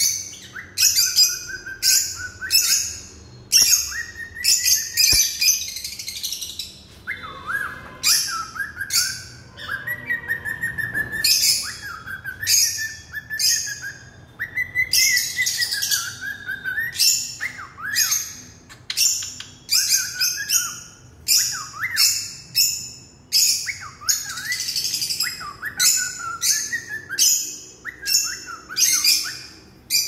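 Caged pet parrots, cockatiels and lovebirds, calling nonstop: a rapid run of sharp, shrill chirps, one or two a second, some with short whistled rises and falls in pitch.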